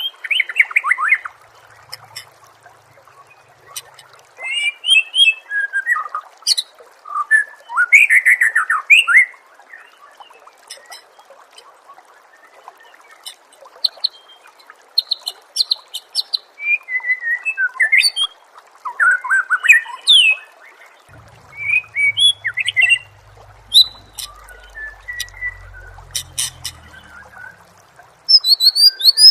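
A white-rumped shama (murai batu) singing a varied song of short whistled phrases, fast trills and chirps, each burst separated by a brief pause, over a faint steady hiss.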